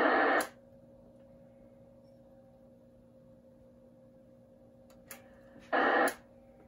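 Shortwave band static from a ham transceiver's speaker cuts off with a relay click as the rig is keyed to transmit through the linear amplifier, leaving a low steady hum. Near the end the static bursts back for about half a second between clicks, then cuts out again.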